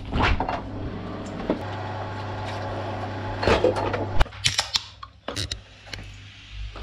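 Kitchen handling sounds: a wooden cupboard door opening and things being knocked and clicked about, over a steady low hum that stops about four seconds in.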